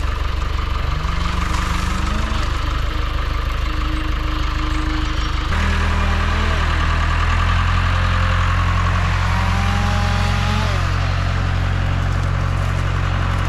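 Farm tractor engine running under load as it drags a fallen tree by chain, its pitch rising, holding and falling several times.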